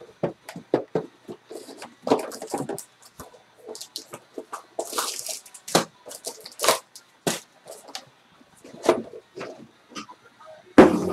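Shrink-wrapped cardboard trading-card box being unwrapped and opened by hand: a run of small taps, clicks and plastic rustles, with a longer crinkling rustle about five seconds in. Foil-wrapped card packs are set down on the mat, with a loud knock near the end.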